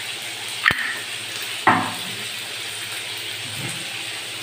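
Chopped garlic and onion sizzling in hot oil in a frying pan over a gas burner, a steady frying hiss. Two sharp knocks cut through it about a second apart near the start.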